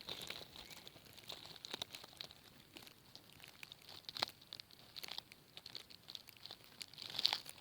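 Crackling, crinkling handling noise from a camera being moved around by hand: irregular small clicks and crackles, with a louder click about four seconds in and a louder cluster of crackles near the end.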